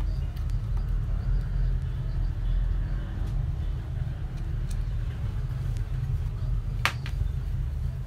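A steady low rumble of background noise, with a few faint ticks of a screwdriver working the screws on a vacuum cleaner motor's brush holders and one sharp click about seven seconds in.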